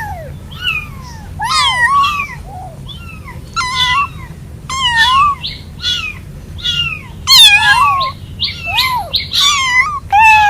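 Young kittens meowing over and over in short, high, wavering calls, some overlapping: distress calls for their mother and littermates while away from the mother cat.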